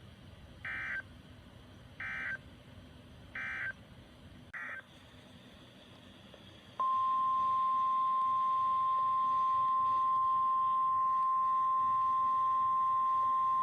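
NOAA Weather Radio SAME end-of-message codes: four short, buzzy digital data bursts a little over a second apart, closing out the severe thunderstorm warning. About two seconds later the steady 1050 Hz weather-radio alert tone starts and holds, ahead of the next warning.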